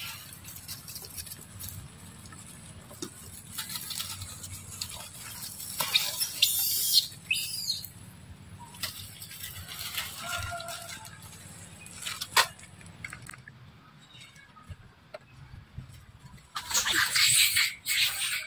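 Leaves and twigs rustling and snapping as a baby monkey climbs about in them, coming in uneven spells, loudest about six seconds in and again near the end, with a few sharp twig clicks.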